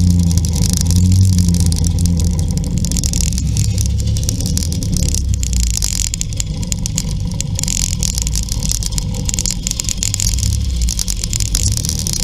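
Classic two-stroke scooter engines running on the move in a group ride, the nearest engine's note wavering a little in the first couple of seconds and then holding steady, with wind rushing over the microphone.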